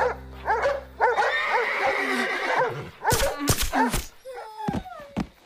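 Cartoon animal cries: guard dogs snarling and barking and a horse whinnying. Near the end comes a falling whimper from a dog struck by a tranquilliser dart.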